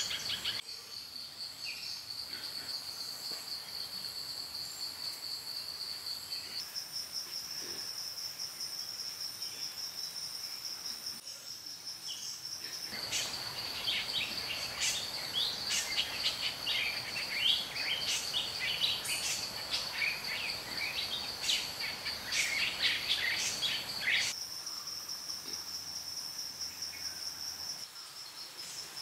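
Steady high-pitched insect drone of tropical forest, shifting abruptly to a slightly higher pitch several seconds in and changing again a few times. Through the middle stretch it is joined by a busy scatter of short chirps.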